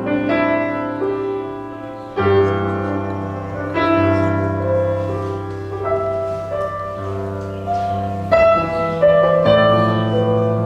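Slow instrumental worship music led by piano: sustained chords struck every couple of seconds over a held bass, with a melody on top.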